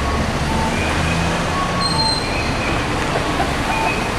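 Articulated city bus pulling away from a stop, its engine running with a steady low rumble. Short repeated electronic tones sound over it about every second.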